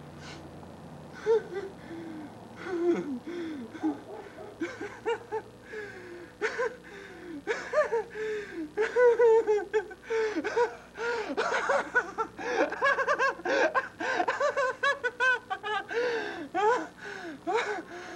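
A man laughing hard in fits of breathy, gasping laughs, starting about a second in and carrying on to the end.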